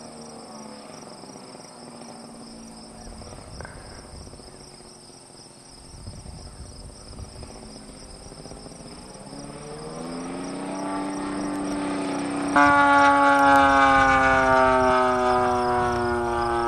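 Engine of a radio-controlled Pitts Special model biplane in flight, a buzzing tone. It is faint at first and swells and rises in pitch from about eight seconds in. It jumps suddenly louder a few seconds later, then slowly falls in pitch as the plane passes.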